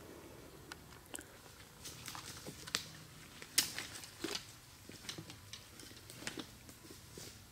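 Irregular small crunches and clicks, about a dozen spread over several seconds, the loudest a sharp crack about three and a half seconds in.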